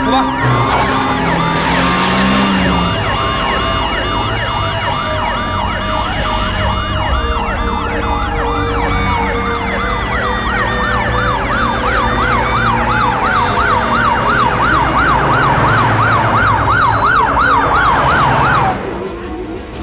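Several police car sirens sounding at once, a fast yelp over slower wails, with vehicle noise underneath. They cut off abruptly near the end.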